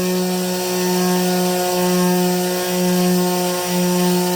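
Rotary tool with a diamond bit running at low speed, grinding a hole into a citrine crystal kept under water. A steady motor hum with a gritty hiss over it, the hum sagging slightly about once a second as the bit is rocked to clear the debris.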